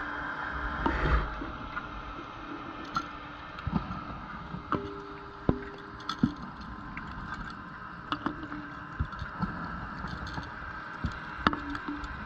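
Underwater sound picked up inside a camera housing on a wreck dive: a steady hiss and hum with faint steady tones, scattered small clicks and knocks, and a short rush of noise about a second in.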